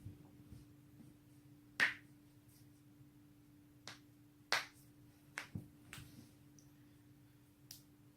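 A person cracking their own joints: a series of about seven sharp pops. The loudest comes about two seconds in, several quicker ones cluster in the middle, and one more comes near the end.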